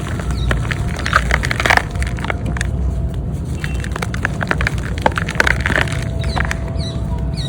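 Reformed gym chalk being crushed and crumbled, giving dry, gritty crackles and crunches. Denser bursts come about a second in and again a little past the middle.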